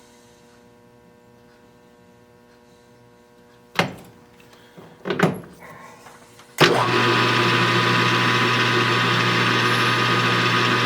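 A few sharp knocks and clicks as the metal lathe's spindle speed is turned down, then the lathe is switched on about two-thirds of the way in and runs with a steady motor hum.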